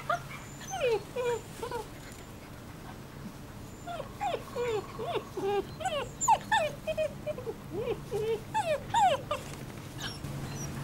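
German Shepherd puppies yipping and whining in play: many short, high, bending yelps in quick succession. A short burst comes at the start and a longer run from about four seconds to nearly the end.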